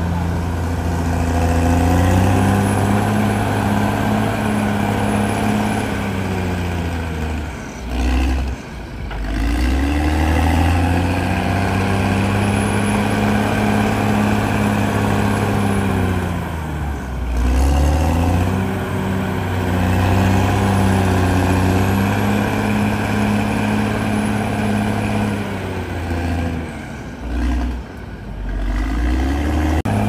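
CAT D6R XL bulldozer's diesel engine running under load as the dozer pushes soil, its note sinking briefly and then picking back up three times, roughly every nine seconds.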